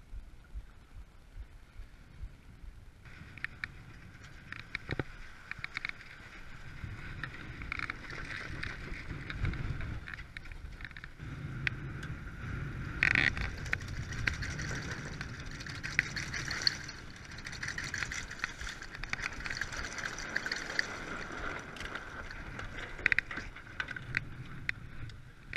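Sailboat under way at sea: water rushing along the hull and wind buffeting the microphone, with scattered short clicks and knocks from the boat. It grows louder about three seconds in.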